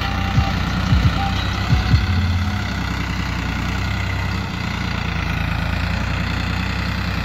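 New Holland 3630 tractor's three-cylinder diesel engine running steadily while pulling a trolley loaded with soil, with a few short thumps in the first two seconds.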